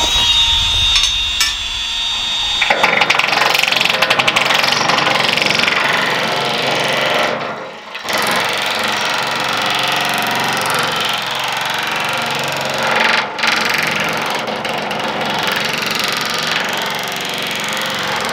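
Power nibbler cutting a ribbed metal roofing panel: a steady whine at first, then from about three seconds in a loud, rapid chattering as the punch chews through the sheet, easing off briefly twice.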